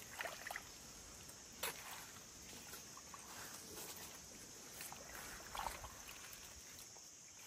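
Faint sloshing and splashing of shallow, muddy pond water as fish are groped for and scooped out by hand, with a couple of sharp small knocks.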